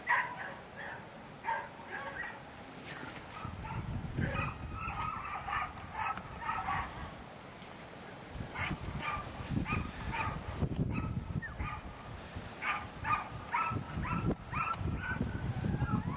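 A dog barking in runs of short, quick yaps, with pauses between the runs. A low rumble comes and goes under it.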